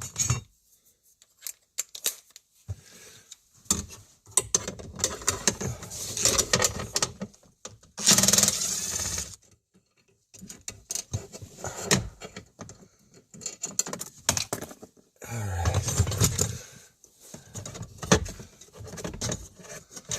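An 8mm wrench clinking and scraping against metal as a bracket is worked loose behind a vehicle's dashboard, with irregular clicks and rattles. There are two longer bursts of rustling, about eight seconds in and again about fifteen seconds in.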